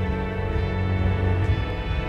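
Background music: a slow instrumental track with sustained notes over a steady bass.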